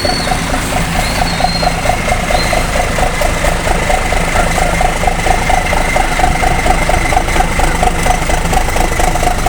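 A coach engine idling through a loud, growling aftermarket 'V8 bobrok' exhaust, with a steady, even rumbling beat.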